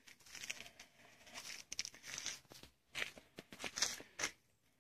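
Irregular rustling and crinkling of material being handled close by, in short uneven bursts, the loudest coming about three to four seconds in.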